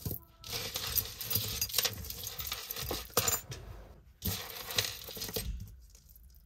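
Loose jewelry clinking and jingling as hands rummage through a box of it: chains, beads and metal pieces knocking together in two busy spells, dying away near the end.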